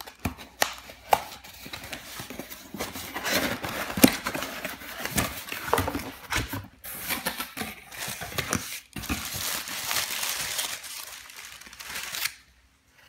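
Cardboard shipping box being opened by hand: flaps and lid knocked and scraped, and packing paper rustled and crinkled, with many sharp clicks. It goes quiet shortly before the end.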